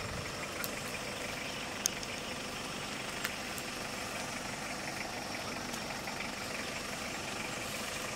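A 4x4's engine idling steadily, with a few faint clicks.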